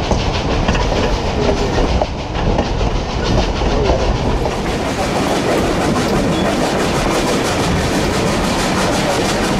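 Durango & Silverton narrow-gauge steam train running along the line: a steady, loud rumble of the moving train with an even, fast rhythm of ticks through it.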